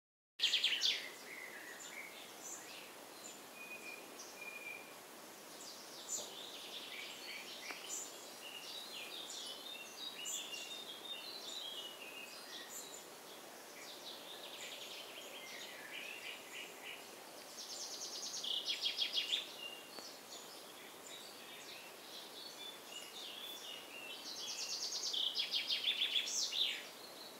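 Woodland birdsong: many short, high chirps and calls from several birds, with a loud rapid trill about two-thirds of the way through and another that grows louder near the end.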